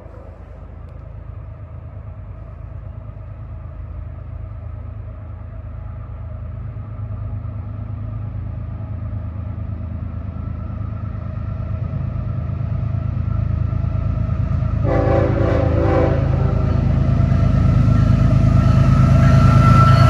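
Approaching freight train led by GE ES44AH and ET44AH diesel locomotives, the engines' rumble growing steadily louder. A multi-chime air horn sounds throughout, with a louder blast about 15 seconds in, and its pitch starts to drop at the very end as the lead locomotive passes.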